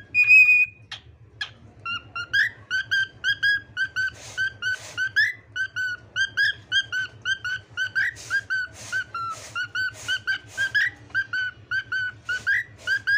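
Cockatiel singing: a fast, even run of short whistled notes, about three a second, with scratchy notes mixed in. A steady low hum sits underneath.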